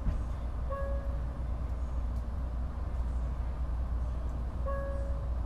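Steady low rumble of a Kodama Shinkansen train running at speed, heard from the vestibule inside the car. A short clear tone sounds twice, about a second in and again near the end.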